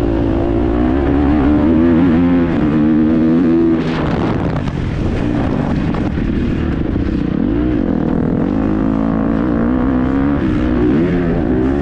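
KTM 250 SX-F single-cylinder four-stroke motocross bike engine being ridden hard, its revs rising and falling with the throttle. The revs drop sharply about four seconds in, then build again.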